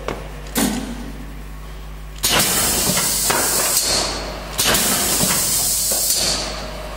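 MKH3 cartoning machine stepping in manual mode at presses of its start button. A short knock is followed twice by a sudden burst of mechanical running with a strong hiss, each lasting about two seconds and fading out as the machine completes one step.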